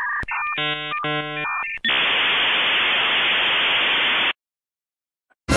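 Dial-up modem connecting over a phone line: steady beeping tones, then a burst of squealing handshake tones, then a loud hiss of static that cuts off suddenly about four seconds in. A loud hit starts right at the end.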